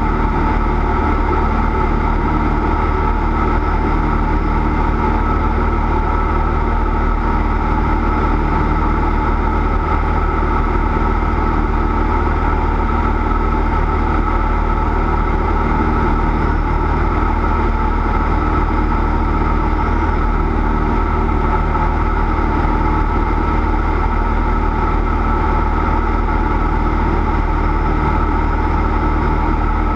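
Cessna 172's piston engine and propeller running at a steady speed, a loud, even drone with unchanging pitch.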